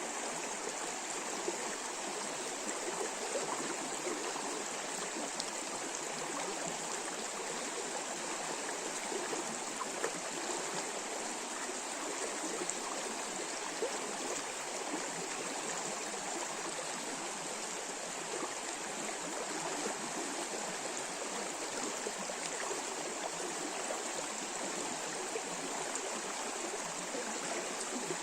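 A forest river running over shallow riffles: a steady rush of water with small splashes and gurgles throughout.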